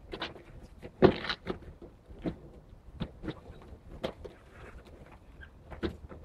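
Cardboard boxes packed with mangoes being set down and stacked on pallets: irregular thuds and knocks, the loudest about a second in.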